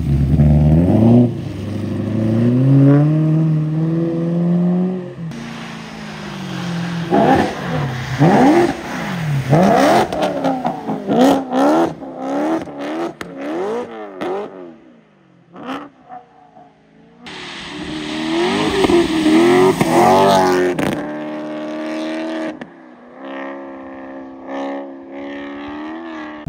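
Supercharged BMW M3 E90's V8 engine revving up and dropping back again and again as the car drives and slides in snow, with a short lull about fifteen seconds in.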